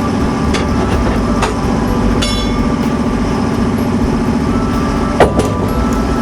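Sawmill machinery running steadily under engine power, with a few sharp knocks and clatters of wood or metal over it, the loudest about five seconds in.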